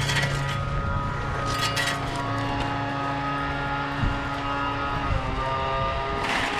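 An engine runs steadily at an even pitch throughout, with brief rattles near the start and again about a second and a half in.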